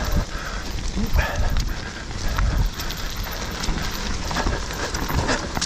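Mountain bike riding fast over a dirt trail: a steady rumble of tyres on the ground, with the bike clattering and knocking over bumps.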